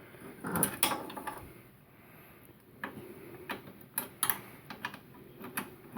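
Ratchet socket wrench clicking as it is turned on a battery terminal bolt: a soft rustle early on, then a string of separate, irregular clicks.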